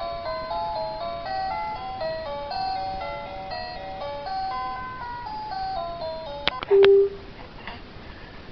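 A baby's musical toy playing a simple chiming electronic tune of plain single notes. About six and a half seconds in the tune stops with two sharp clicks, followed by a short, loud steady tone.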